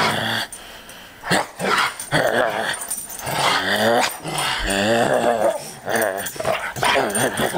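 Airedale terrier growling in play, a string of uneven growls whose pitch rises and falls.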